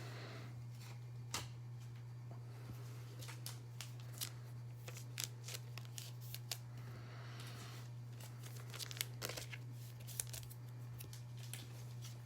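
Trading cards and packaging being handled: scattered light clicks, taps and rustles of card stock, over a steady low electrical hum.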